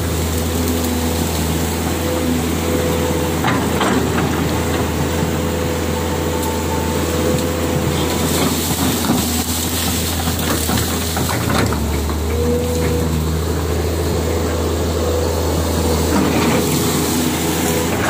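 Kobelco hydraulic excavator's diesel engine running steadily under working load, a constant deep hum with a higher whine that comes and goes as the machine works. A few sharp knocks or cracks sound over it as the arm clears undergrowth.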